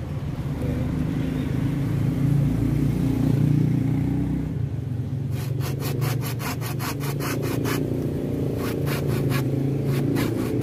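Small hand saw cutting through a bougainvillea rootstock stem, with back-and-forth strokes heard plainly from about five seconds in at about four a second. A steady low engine hum runs underneath throughout.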